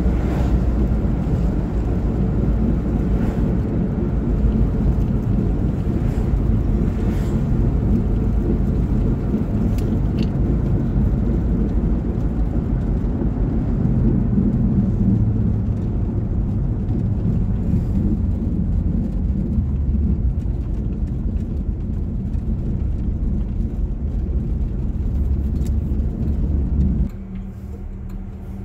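Road and engine noise inside a moving car's cabin, a steady low rumble. Near the end it drops sharply as the car comes to a stop at a traffic light, leaving a quieter low steady hum.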